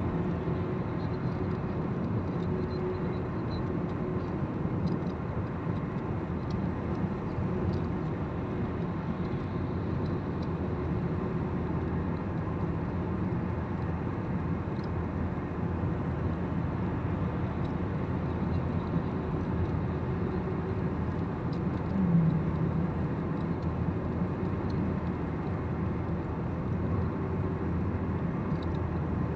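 Steady road and engine noise inside the cabin of a car moving at highway speed. A brief low tone stands out about three-quarters of the way through.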